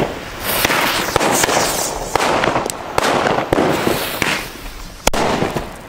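Fireworks and firecrackers going off: a run of sharp bangs amid dense crackling and hissing, the sharpest bang about five seconds in.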